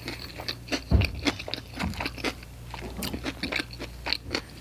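Close-up chewing of pizza topped with crunchy hot Cheetos: irregular crisp crunches and mouth sounds, with one duller thump about a second in.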